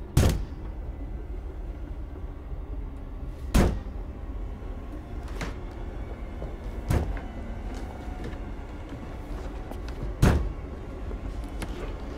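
A series of heavy bangs, like blows on a door, about five of them at uneven gaps of one and a half to three and a half seconds, over a steady low rumble.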